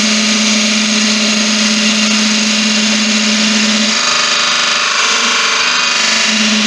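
Laguna wood lathe spinning a spalted beech blank while a parting tool cuts a guide groove into it: a steady hiss of cutting over a low hum that drops out for about two seconds, about four seconds in.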